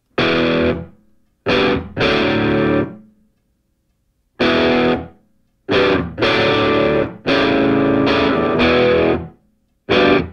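Background music: distorted electric guitar chords struck in short held blocks, each one ending before a moment of complete silence before the next.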